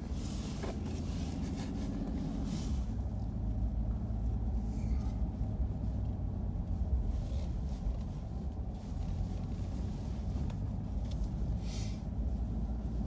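Steady low rumble of a four-wheel-drive vehicle driving, heard from inside the cabin, with a few brief faint hisses.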